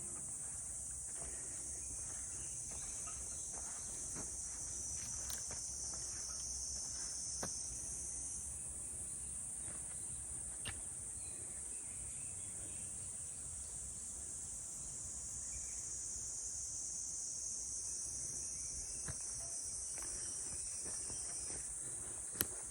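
A steady, high-pitched chorus of insects. A second, lower buzzing layer joins for the first third and again near the end. Faint scattered ticks run under it, with one sharp click just before the end.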